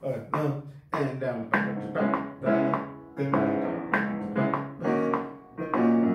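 Steinway Grand Piano software instrument played from a MIDI keyboard: a freestyle part on two chords, notes struck in a steady pulse a little under twice a second.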